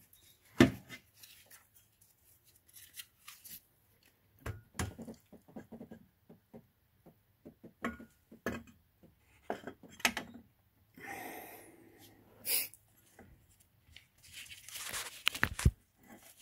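Scattered clicks, knocks and rustling of gloved hands working the aluminium oil filter housing onto the engine block over its locating dowels, with a sharp metal knock about half a second in and another near the end.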